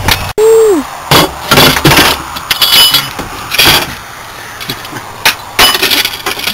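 Irregular sharp metallic clanks and knocks from tire-changing tools and the spare wheel being handled, a few of them ringing briefly.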